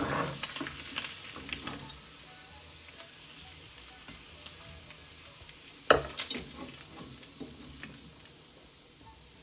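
Metal slotted spoon and fork clattering against a ceramic plate as slices of spleen fried in lard are laid on it: a sharp clatter at the start and again about six seconds in, each followed by a few lighter clicks. Under it, the hot lard in the pan sizzles faintly and steadily.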